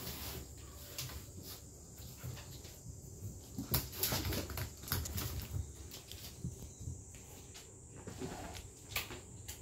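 Kittens playing on a wooden floor: scattered light taps and knocks as they move about.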